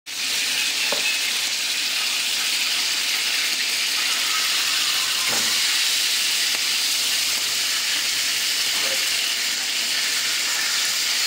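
Chicken leg quarters sizzling in hot oil in a frying pan, a steady frying hiss.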